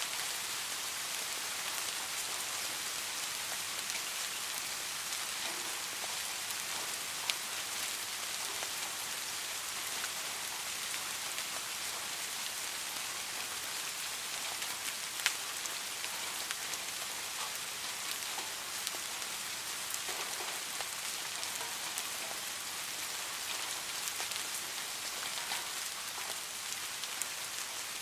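Steady rain falling, an even hiss with scattered individual drops ticking on a surface and a few louder single drop hits.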